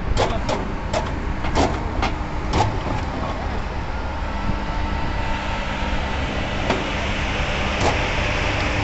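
Electric rebar bending machine running, its motor and gearbox humming steadily as the turntable bends a steel reinforcing bar. Sharp clicks and knocks come in the first few seconds and twice near the end, and the noise grows brighter and hissier in the second half.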